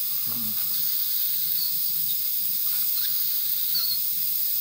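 Airbrush hissing steadily as compressed air flows through it during spraying.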